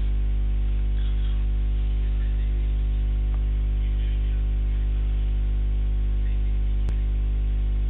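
Steady electrical mains hum, a stack of evenly spaced tones, with a single sharp click about seven seconds in.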